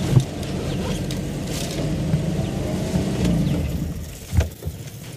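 Game-drive vehicle's engine running high and steady, then dropping away about four seconds in, followed by a single dull thump.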